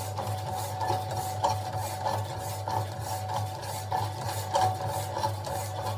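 Electric power hacksaw cutting steel: the blade rasps through the metal in a steady rhythm of strokes over the constant hum of its motor.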